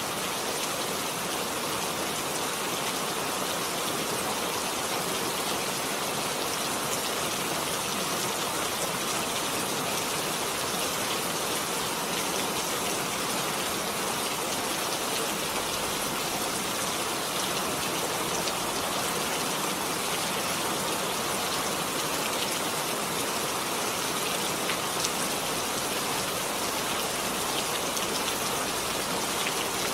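Heavy rain falling steadily, a dense hiss of drops with fine pattering on surfaces.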